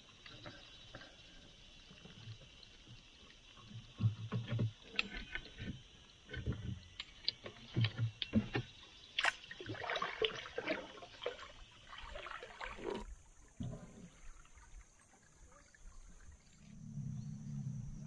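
Canoe paddling: a paddle dipping and splashing in the river, with irregular knocks and water dripping.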